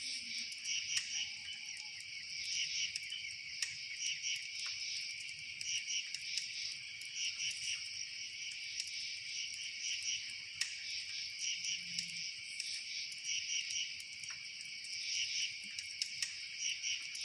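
Chorus of crickets chirping steadily in quick pulsed trills, with a few faint sharp clicks scattered through it.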